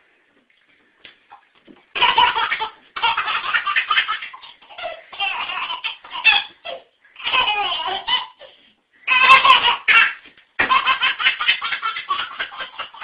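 A baby laughing hard in repeated bursts of belly laughter, starting about two seconds in, with short pauses between bursts; the last burst is a rapid run of short ha-ha pulses.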